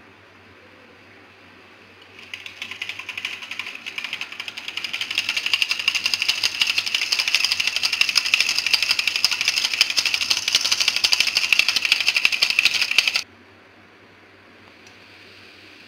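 Hand mixer beaters whisking a thin batter in a steel bowl: a dense, rapid clatter of the beaters against the steel. It starts about two seconds in, builds over the next few seconds and cuts off suddenly near the end.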